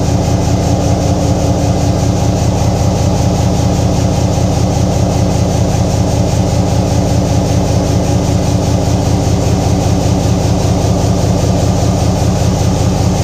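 EMD 16-645 locomotive diesel, a 16-cylinder two-stroke, running steadily at an even, unchanging speed on its first run in 12 years.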